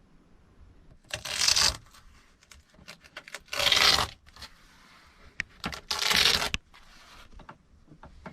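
Three short, rough scraping sounds, each under a second, spaced about two and a half seconds apart, with small knocks between them.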